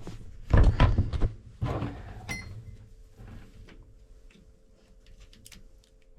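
Knocks and clatter of tools and fittings being handled, a short metallic clink about two seconds in, then a few faint light clicks.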